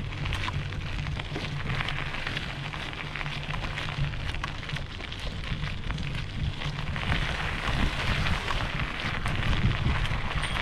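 Wind buffeting the microphone: a steady low rumble with crackling.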